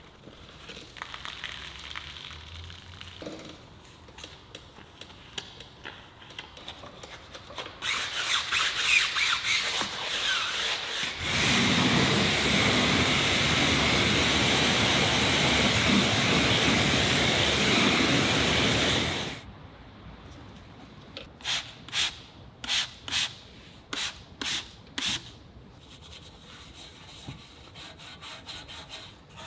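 Wet brush scrubbing a foamed car wheel, growing louder and faster about eight seconds in. A pressure-washer spray then rinses the wheel with a loud steady hiss for about eight seconds and cuts off abruptly. After that comes a run of about seven quick brush strokes scrubbing an exhaust tip.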